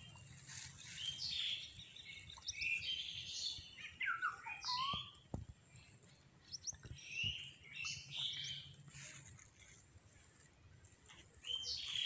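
Birds chirping, with short, varied high calls coming and going, along with a few faint clicks near the middle.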